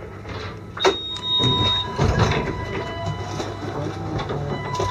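Railway station platform noise: a steady low rumble that swells about a second and a half in, a sharp knock about a second in, and a thin steady whine.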